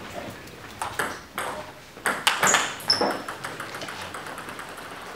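Table tennis ball struck by bats and bouncing on the table: a run of sharp clicks over the first three seconds, the last few ringing with a high ping.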